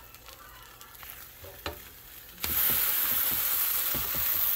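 Grilled cheese sandwiches frying in a nonstick pan: a faint sizzle, then about halfway through a sudden, much louder sizzle. Short scrapes and taps from a spatula moving a sandwich in the pan can be heard through it.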